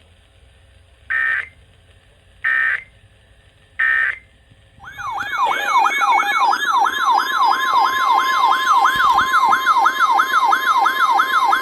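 Three short electronic data bursts from an Emergency Alert System, the end-of-message code, each a fraction of a second. Then a loud warbling alert tone that sweeps up and down about three times a second, with a steady tone joining it near the end.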